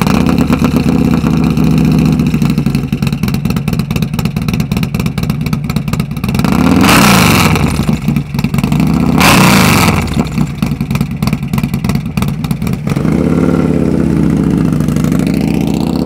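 Harley-Davidson Milwaukee-Eight bagger with a 143 cubic inch big-bore V-twin (181 hp) running loud at idle, blipped up and back down twice, about seven and nine and a half seconds in, with the engine note wavering again near the end.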